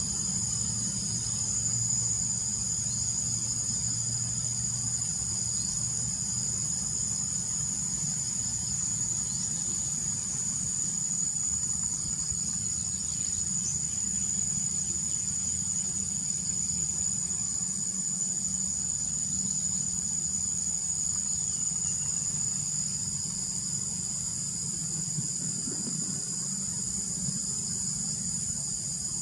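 A chorus of insects, likely crickets, trilling steadily at several high pitches without a break, with a low hum underneath.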